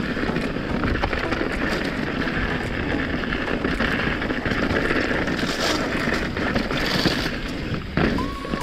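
Mountain bike rolling down a trail: tyres rumbling over dirt and rock, with frequent sharp rattles and clicks from the bike. A thin steady tone comes in shortly before the end.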